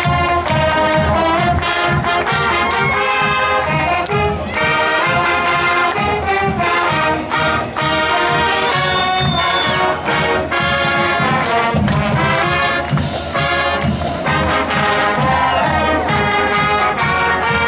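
Marching band playing a march at full volume, trumpets and other brass carrying the tune over a steady beat.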